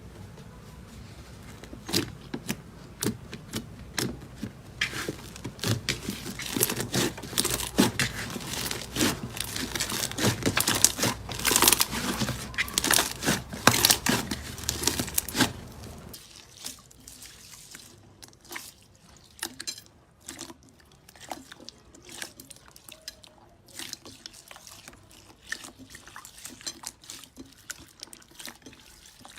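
Slime being squished and stretched, with many small sticky crackles, pops and wet clicks. The crackling is dense and louder for the first half, then turns softer and sparser after a break.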